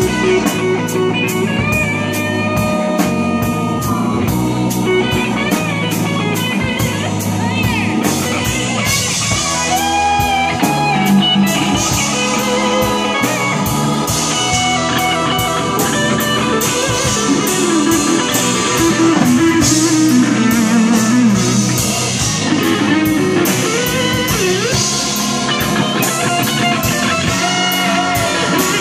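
Live blues-rock band playing: electric guitar leading with bent notes over a steady drum-kit beat, electric bass and keyboards.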